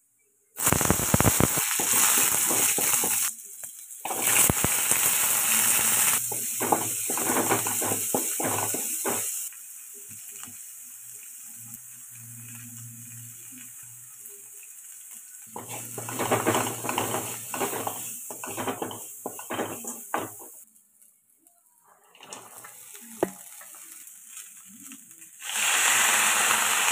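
Hot oil sizzling in a metal kadai as curry leaves, shallots and chopped flat beans are fried and stirred. There are several loud stretches of sizzling a few seconds each, with quieter stretches between and the scrapes and taps of stirring.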